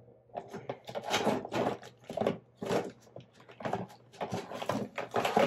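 Plastic makeup-wipe packet being handled and opened, a series of irregular rustles and crinkles as a wipe is pulled out.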